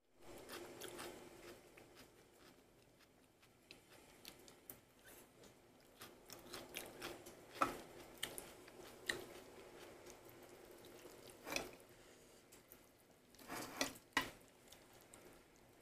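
Faint eating sounds: chewing and crunching, with scattered sharp clicks of metal chopsticks against stainless steel bowls. The clicks are louder and more frequent in the second half.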